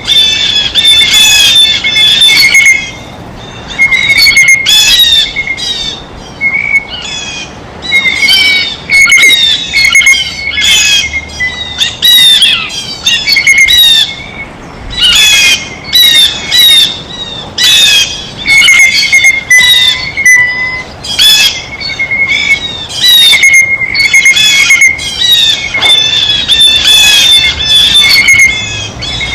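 Blue jays calling over and over, loud call after call with short gaps between.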